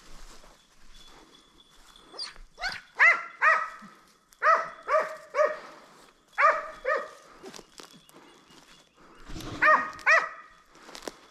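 Rabbit-hunting dog barking: about nine short, high-pitched barks in quick pairs and threes, with pauses of a second or two between the groups.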